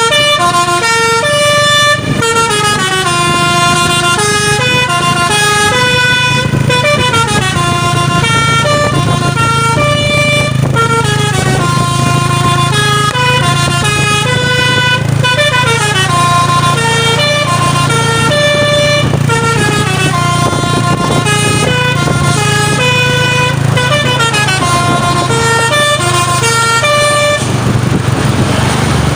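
Truck's basuri telolet horn, a multi-trumpet musical air horn, playing a fast melody of stepped notes with some sliding notes, over the steady hum of the truck's engine. The melody stops near the end.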